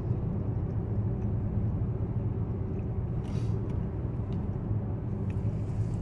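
Steady low rumble of a car running, heard from inside the cabin.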